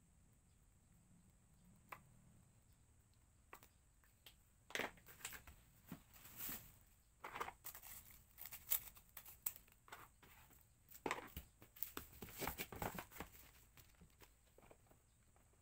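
Packaging being handled: irregular crinkling and rustling from about five seconds in until near the end, after a few single faint clicks.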